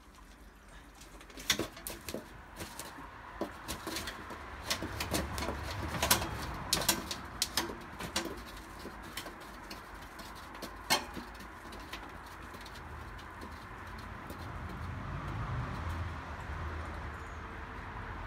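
A freshly cut turkey's death throes in a metal killing cone: irregular knocks, clatters and flapping as the bird kicks and beats against the cone and its board. The knocks are thickest in the first eleven seconds, then give way to a quieter, steadier scuffling.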